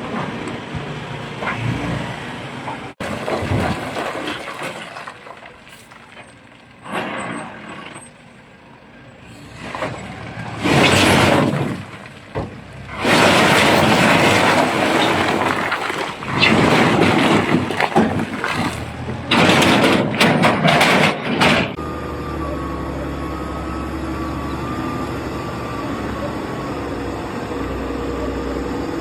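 Heavily overloaded trucks: a run of loud, rough noise bursts through the middle, then a steady engine drone for the last several seconds.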